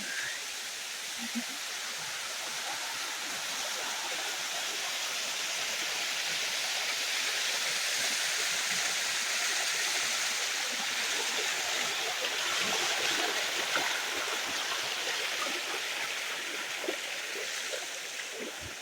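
Water rushing steadily down a waterfall cascade, growing a little louder toward the middle and fading near the end.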